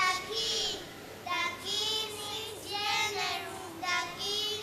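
A child singing a song in short phrases of held notes, with a wavering pitch.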